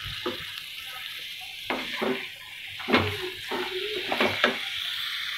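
Wooden spatula scraping and knocking against a non-stick pan while crumbled mawa and paneer are stirred over the flame, over a steady faint sizzle from the cooking.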